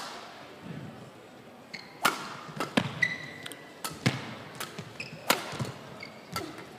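Badminton rally: a string of sharp pops as racket strings strike the shuttlecock, about every second and a quarter, with short squeaks of court shoes on the floor between the hits.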